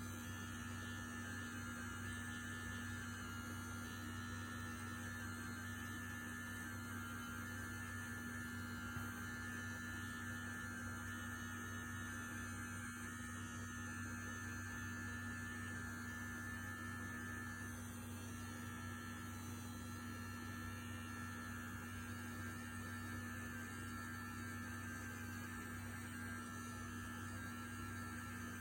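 Manscaped Lawn Mower 3.0 electric trimmer running steadily with a constant hum while cutting hair.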